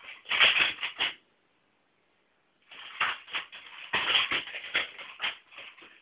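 Double stick (nunchaku) being swung and handled: rapid, irregular clacks and rattles in quick clusters. The sound cuts out completely for about a second and a half near the start.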